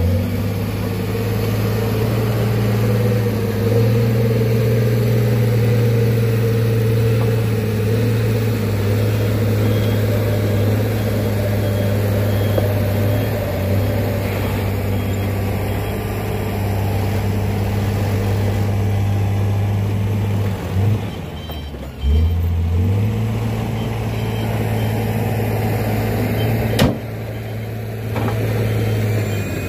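Mitsubishi Canter dump truck's diesel engine running steadily under load as the hydraulic hoist raises the loaded tipper bed and the soil slides out. The engine note dips briefly and picks up again about two-thirds of the way through, and there is a single sharp knock near the end.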